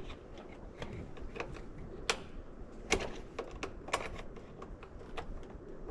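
Irregular light clicks and taps of hands working at the fuel injector connectors and clips on an LS V8's fuel rail, about a dozen scattered sharp clicks.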